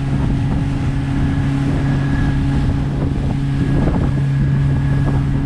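Fishing boat's engine running with a steady hum, wind buffeting the microphone.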